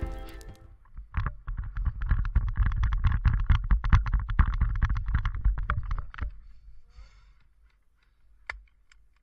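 Intro music fades out in the first second. Then about five seconds of rapid, muffled crunching and thumping from footsteps and gear on the forest floor, boomy through an action camera's waterproof case. Near the end, two sharp pops about half a second apart from an airsoft pistol firing.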